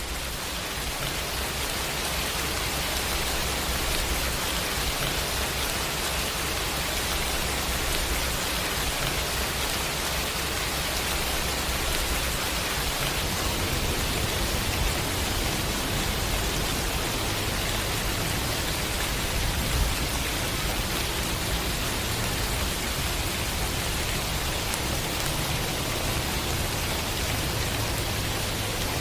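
Steady rainfall: a dense, even hiss of rain falling on surfaces.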